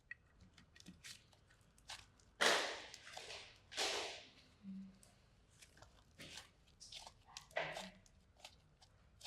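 Hands working on a slime toy as it is cleaned, making an irregular run of small clicks and crackles, with two louder rustling scrapes about two and a half and four seconds in.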